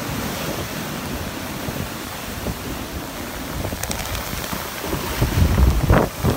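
Rough storm surf washing up the beach and swirling foam around the base of a palm tree, under strong wind that buffets the microphone. The low wind rumble grows louder from about five seconds in.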